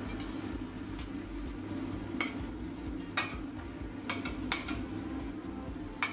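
Chicken thighs in teriyaki sauce simmering and sizzling in a stainless steel frying pan, the sauce boiling down to thicken. A metal utensil clinks and scrapes against the pan about half a dozen times as the chicken is turned and basted, the loudest a little past three seconds in.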